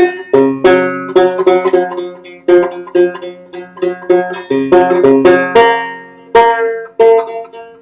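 Banjo being played clawhammer-style: a rhythmic run of bright plucked and strummed notes ringing out.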